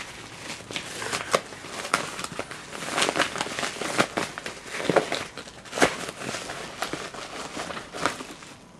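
Yellow padded paper bubble mailer handled and opened by hand: irregular crinkling and crackling of the paper and its bubble lining.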